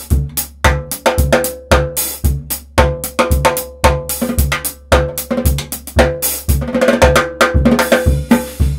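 Drum kit played with only bass drum, snare drum and hi-hat, no toms, in a steady groove of about two bass-drum strokes a second, getting busier near the end.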